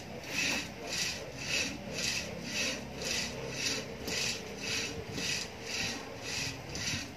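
Rope running through an overhead pulley on a rope-and-pulley arm exerciser, a rasping swish with each pull, about two a second in a steady rhythm.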